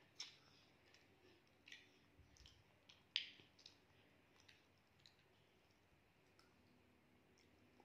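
Faint, irregular clicks and taps of a fork against a bowl while a child eats noodles, the sharpest about three seconds in.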